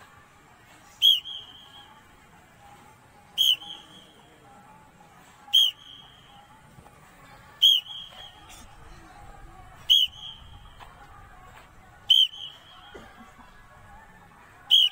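A coach's sports whistle blown in seven short, sharp, high-pitched blasts, evenly spaced about two seconds apart, marking the count for a group's sit-up repetitions.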